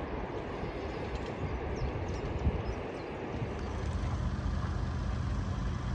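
Steady low running rumble of a vehicle in motion. About three and a half seconds in, a steady low hum joins it.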